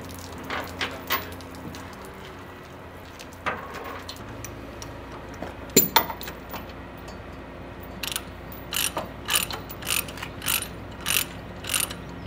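A hand-worked ratchet mechanism clicking as something is lifted. A few scattered clicks come first, then from about eight seconds in an even run of clicks a little under two a second, over a steady low hum.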